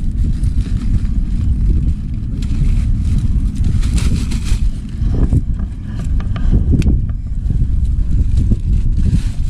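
Steady low rumble of wind buffeting the microphone, with brief rustles and small clicks from hands handling a nylon landing net about halfway through.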